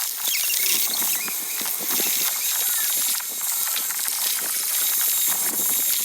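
A dense jumble of sound effects: many quick clicks and a few short squeaks over a steady hiss.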